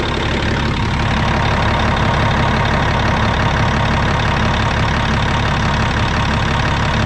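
Caterpillar 740 articulated truck's C15 diesel engine idling steadily, with a thin steady whine over it, running so its A/C system can take a refrigerant charge.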